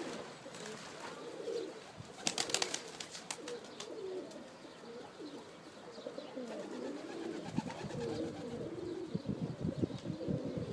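Several pigeons cooing, their low warbling coos overlapping one another throughout. About two seconds in there is a short run of sharp clicks.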